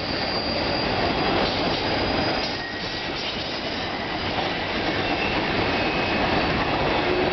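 Freight train cars rolling past at close range: a steady rumble and clatter of steel wheels on the rails, with faint thin wheel squeals now and then.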